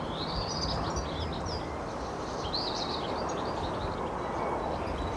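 Outdoor ambience of small birds chirping and twittering, many short high calls, over a steady low background noise.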